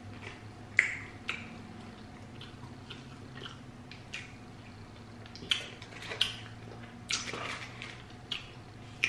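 Food-handling sounds: scattered short, sharp clicks and crinkles as a plastic dressing packet is handled and squeezed over a grilled chicken wrap and the wrap is lifted to be bitten. A low steady hum runs underneath.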